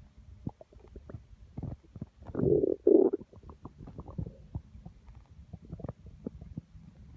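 A person's stomach growling and gurgling: a run of short gurgles and pops, with a louder drawn-out rumble about two and a half seconds in.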